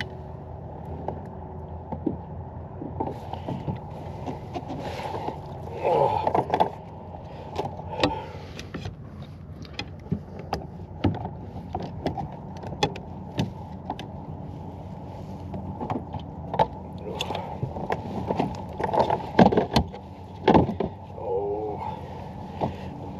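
Irregular clicks and knocks on a kayak, with a few louder bursts of handling noise, as a big bass is fought and brought in, over a steady low background noise.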